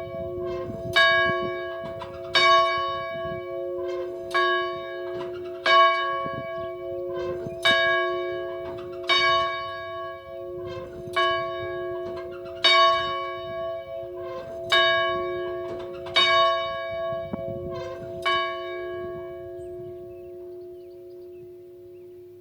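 Church bell ringing, about eleven strokes spaced a second and a half to two seconds apart, the hum of each carrying on under the next. The strokes stop about four seconds before the end and the ringing dies away.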